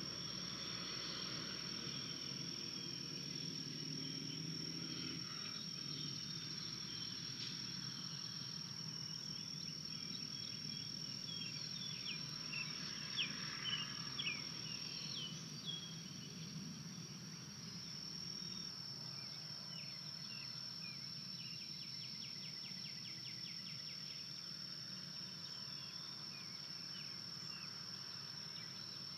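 Evening woodland ambience: a steady high-pitched insect drone, with a few short bird chirps about halfway through and a rapid ticking trill near the end.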